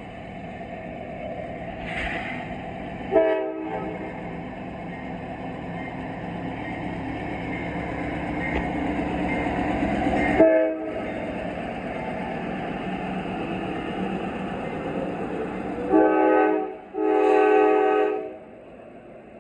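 Norfolk Southern GE ES44AC diesel-electric locomotive 8103 approaching and passing with a freight train, its engine rumble growing louder as it nears. Its multi-note horn sounds a short blast about three seconds in and another around the middle, then two longer blasts near the end.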